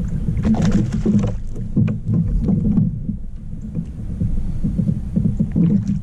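Wind buffeting the microphone in a steady low rumble, with scattered short knocks and water noise as a bass is reeled up and landed beside a kayak.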